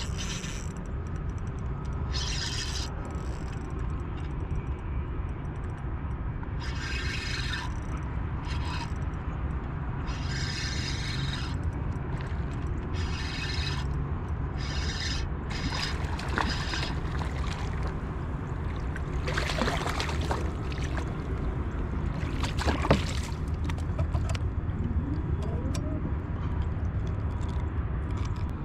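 A steady low rumble, with short hissing bursts every few seconds from fishing line cast out and reeled in on a baitcasting reel, and a couple of sharp clicks about two-thirds of the way through.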